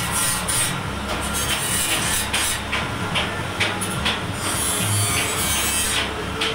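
Rotary dryer's steel drum running under test: a steady low hum with a rasping, scraping noise and a run of irregular light ticks.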